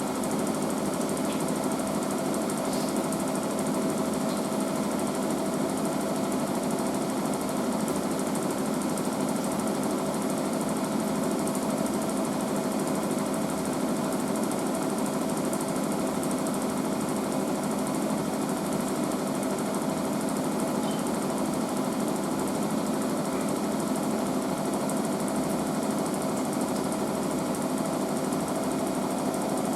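Washing machine drum spinning at high speed on its final spin, a steady whir and rattle with a constant hum and no change in speed.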